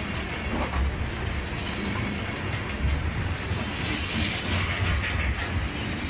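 Freight train of tank cars passing close by: steel wheels rumbling and clattering over the rails in a continuous low rumble that swells and eases.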